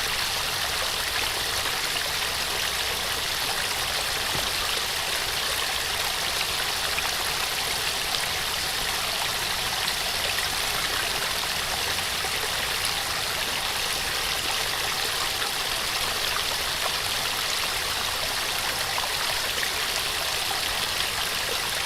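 A small waterfall splashing and rushing steadily, an even hiss of falling water.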